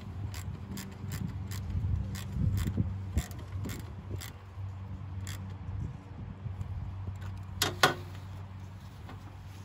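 Metal hose clamp on a leaf-vacuum intake hose clicking as it is tightened with a screwdriver, about three sharp clicks a second for the first few seconds, then two louder clicks late on as the hose is handled. A low steady hum runs underneath.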